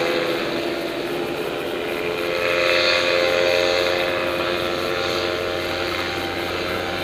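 A paramotor's engine and propeller droning steadily, growing a little louder about two and a half seconds in, then easing back.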